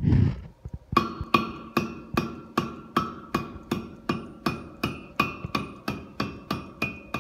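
Blacksmith's hand hammer striking red-hot nail stock over a cutting tool in the anvil, chopping it for a nail. From about a second in, an even run of blows about two and a half a second, each with a bright ringing of the steel.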